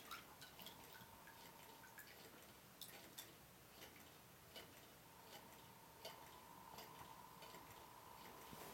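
Faint, irregular light ticks and clicks from a slow-running quarter-scale Rider-Ericsson hot-air pumping engine, with a faint steady hum underneath.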